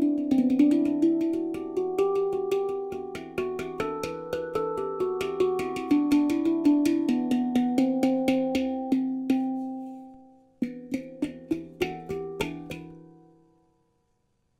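Celestial Sound E Shahmaran 9 handpan, made of nitrided steel, played by hand: a flowing run of struck notes in E minor (Kurd scale) that ring and overlap, dying away about ten seconds in. A short, quick run of notes follows and then fades out to silence.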